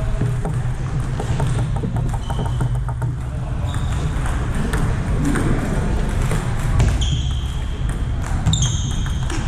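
Sports hall ambience during table tennis: a steady low hum, scattered light ticks of ping-pong balls from other tables, faint voices, and a few short high squeaks near the end.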